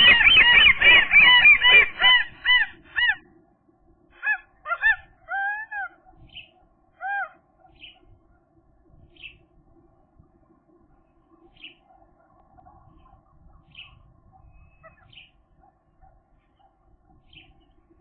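A pair of common gulls calling together at their nest: a loud, rapid run of repeated arched calls for the first three seconds, then a few spaced calls that trail off into occasional faint notes. It is the pair's greeting at a change of incubation shift, after which one gull settles on the eggs.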